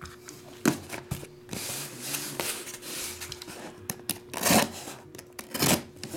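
Utility knife slicing the packing tape on a cardboard shipping case while the box is handled and shifted on the table: a few clicks and knocks, then rough scraping rasps, with the two loudest cuts late on.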